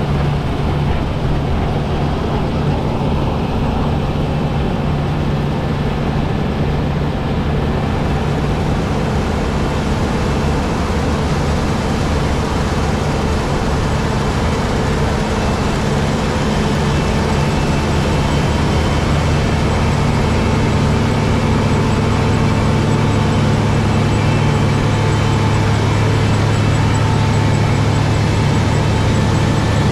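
New Holland CX8070 combine harvester running steadily under load while harvesting barley: a continuous engine and machinery drone that grows a little louder and deeper past the halfway point.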